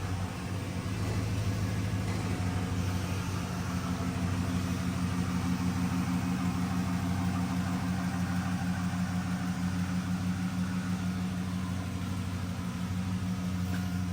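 Jeep Grand Cherokee engine idling steadily.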